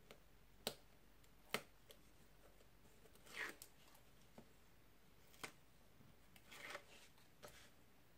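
Faint handling of cardstock and tape: a few sharp light clicks and two short scratchy rustles as the backing liner of double-sided tear-and-tape is picked up with the point of a paper-piercing tool and peeled off.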